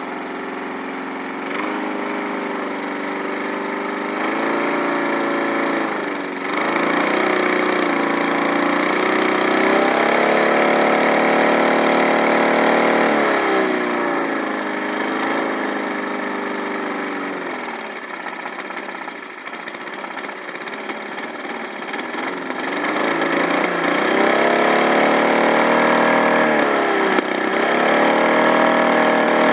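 Lawn mower engine running and being revved up and down, its pitch climbing to sustained high revs, dropping back, then climbing again in the second half.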